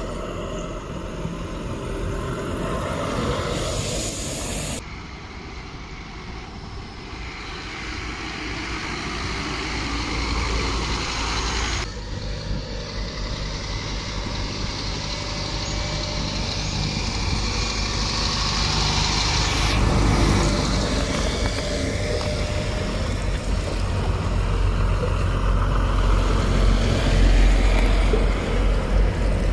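Lorries' diesel engines running as they drive past, a low rumble that grows louder toward the end. A short hiss comes about four seconds in, and the sound changes abruptly three times.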